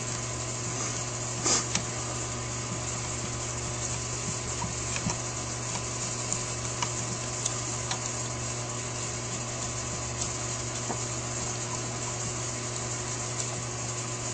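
Steady electrical hum and hiss of the workbench room, with faint scattered clicks of a screwdriver driving small screws into a Holley 4000 carburetor's secondary diaphragm housing. A sharper pair of clicks comes about a second and a half in.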